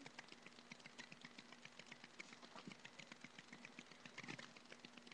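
Near silence: faint, irregular clicks and ticks, several a second, over a low steady hum.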